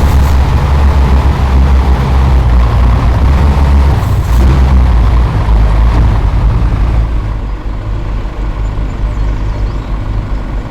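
Heavy vehicle engine running with a deep, loud low-pitched sound. There is a brief hiss about four seconds in, and the engine sound drops somewhat after about seven seconds.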